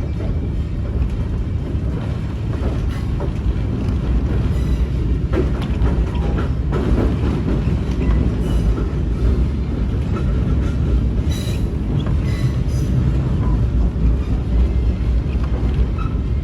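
Passenger train rolling along the track: a steady low rumble of the cars, with scattered clicks of the wheels over rail joints.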